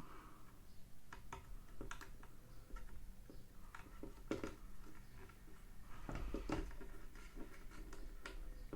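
Faint, scattered clicks and taps of small computer parts and connectors being handled and fitted during a PC-case build, with a stretch of rustling handling noise near the end.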